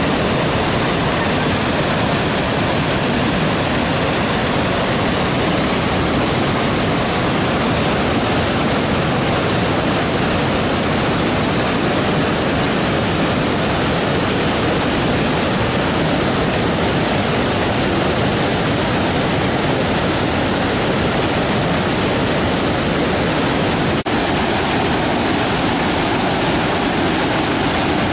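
Waterfall's water rushing in a loud, steady, unbroken noise. A brief dropout comes near the end, after which the sound changes slightly.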